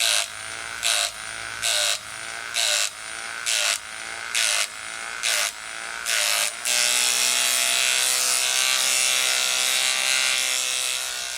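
RC model wood chipper's electric motor whining as its cutter chips wood: a short chipping burst roughly once a second, the motor pitch dipping under load with each, then from about two-thirds in a continuous grinding chipping sound.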